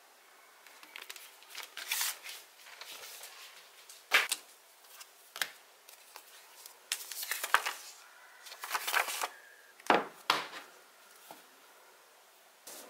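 Handling of a plastic screen-protector film and its paper packaging: a run of rustles and crinkles broken by several sharp taps and clicks.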